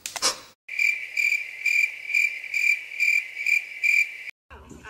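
A brief rustling burst at the start. Then crickets chirping, a high trill pulsing about twice a second, which starts and stops abruptly like an edited-in sound effect.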